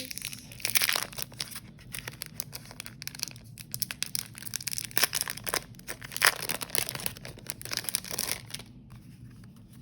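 Paper planner inserts being handled: irregular crinkling and rustling with many short crackles, thinning out near the end.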